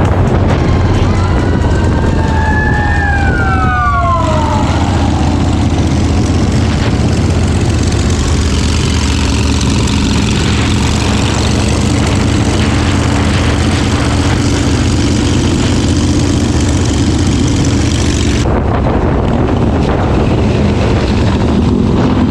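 Harley-Davidson Sportster V-twin running steadily while riding, with a siren wailing and falling in pitch during the first four seconds or so.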